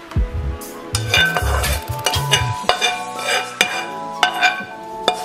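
A metal spatula scraping and knocking against a frying pan as scrambled eggs are scooped into a plastic meal-prep container, with several sharp taps in the second half. Background music plays underneath.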